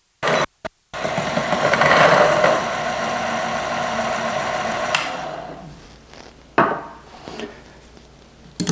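Electric coffee grinder grinding a dose of espresso beans, its motor whirring steadily and then winding down about five seconds in, followed by a single knock.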